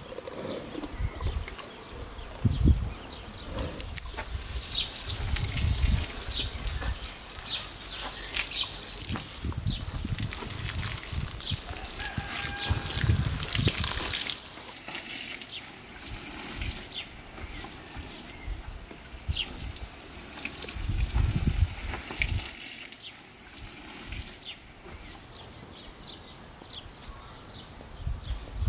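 Water running and splashing in two longer stretches, with scattered light knocks and clinks.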